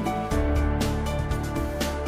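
Background music with steady held notes and a light beat.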